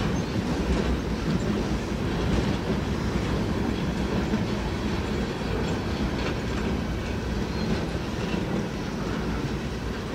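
Freight train flatcars rolling past: a steady rumble of steel wheels on the rails, with irregular clicks as the wheels cross rail joints.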